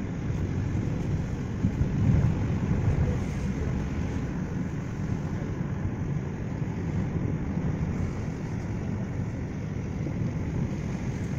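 Steady low rumble of a car driving on a rain-wet road, heard from inside the cabin, with some wind noise.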